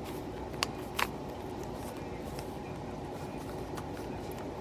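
A few sharp plastic clicks from a Rubik's cube being twisted through its final turns, two louder ones about a second in and fainter ticks after, over a steady low background hum.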